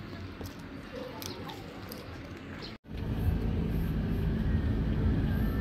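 Quiet outdoor street ambience with a few faint clicks, then after an abrupt cut a moving car's engine and road noise, a steady low rumble heard from inside the cabin.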